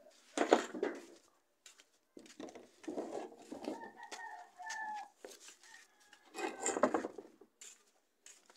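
Chickens clucking and a rooster crowing, in several separate calls; the loudest come about half a second in and again about a second before the end.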